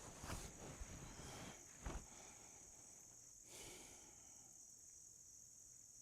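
Steady high-pitched insect chorus in a quiet lakeside setting. A few soft thumps come in the first two seconds, and a brief rustle about three and a half seconds in.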